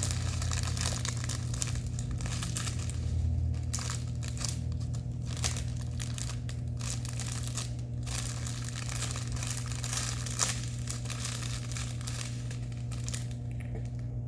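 Packaging crinkling and rustling as it is handled and opened, in a dense, irregular stream of crackles over a steady low hum.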